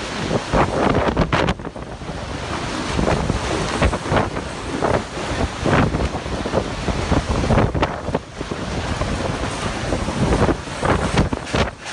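Violent wind of a waterspout buffeting the microphone in rapid, irregular gusts, over the rush of wind-driven spray and choppy water.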